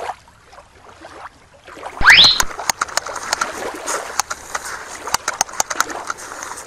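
A quick rising whistle-like sweep about two seconds in, then water splashing with many sharp, irregular clicks as a toy lobster moves its claws in shallow water.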